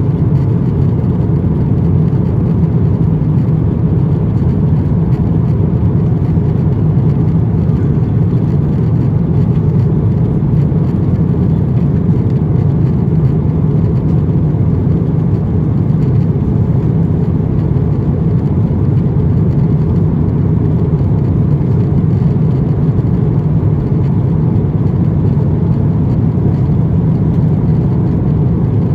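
Steady low drone inside the cabin of an Airbus A350-900 in flight: engine and airflow noise from its Rolls-Royce Trent XWB engines, heard through the fuselage at a window seat.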